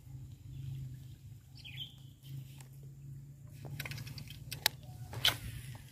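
Sharp clicks and knocks from a baitcasting rod and reel being worked through a cast, clustered in the second half, the loudest two near the end. Under them runs a steady low hum, with a short bird call about two seconds in.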